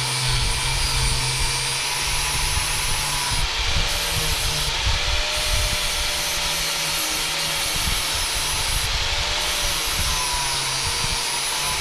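An electric power tool running continuously with a dense rasping noise, its motor tone wavering slightly as it works.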